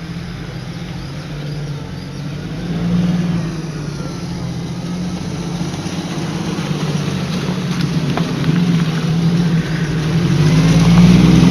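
Off-road vehicle engine running at low revs, swelling briefly about three seconds in and getting louder near the end.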